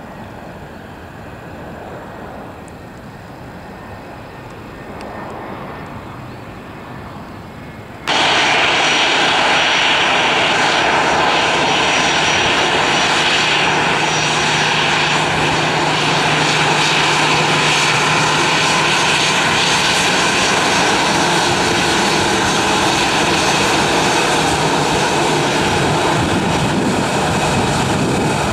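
Airliner jet engines. A fainter, more distant jet sound gives way about eight seconds in, at a sudden cut, to much louder steady jet-engine noise with a strong hiss from an Airbus A320 taxiing close by.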